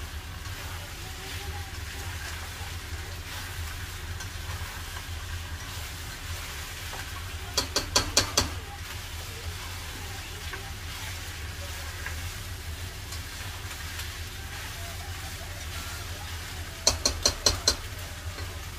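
Chicken feet being stirred in a pot of simmering liquid, over a steady low hum. Two quick runs of four or five sharp taps stand out, about eight seconds in and again near the end.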